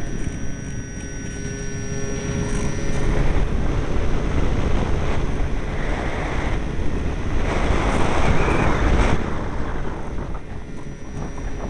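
Strong wind buffeting the microphone: a gusting low rumble that swells and eases, loudest around a third of the way in and again after the middle.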